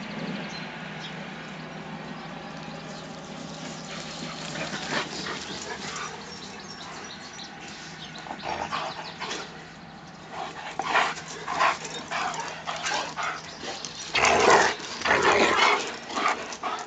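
Dogs barking and yipping in play. Short, sharp barks start about halfway through and come louder and more often, loudest near the end.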